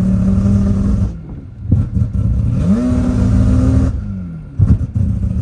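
Mazda 26B four-rotor rotary engine in an RX-3 being driven hard. The engine note holds high, drops about a second in, climbs again and holds, and falls away near four seconds. A few sharp cracks follow, and it rises once more at the end.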